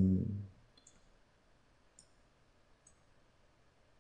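Computer mouse clicking: four single sharp clicks, roughly a second apart. At the very start there is a short, low, steady hum from a man's voice, which stops about half a second in.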